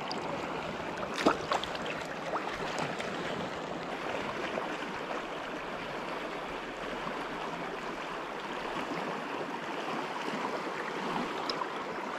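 Steady rush of a flowing river's current, with one short sharp knock about a second in.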